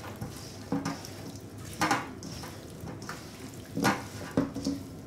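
Hands tossing potato wedges and green beans in an oily marinade in a stainless steel bowl: soft wet squishing and rustling, with a few louder knocks of vegetables against the bowl.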